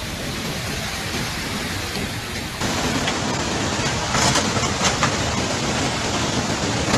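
Steady heavy rain and rushing water. About two and a half seconds in, it gives way to a louder, brighter rush of muddy floodwater, with a few brief louder surges in the middle.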